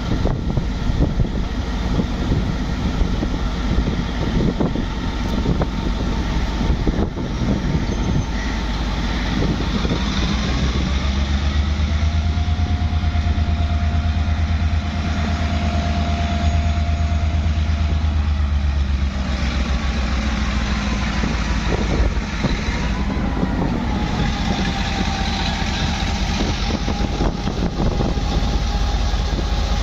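Pakistan Railways GMCU-15 diesel-electric locomotive running slowly past at close range, its diesel engine giving a deep steady drone that is strongest in the middle. A thin whine slides up and down in pitch over the drone.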